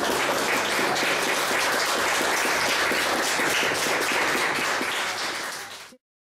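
Audience applauding, a dense patter of many hands clapping, fading a little and then cutting off suddenly near the end.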